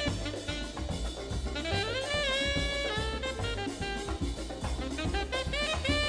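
Jazz music in a swing style: saxophone and brass playing a melody with sliding, bending notes over a drum kit.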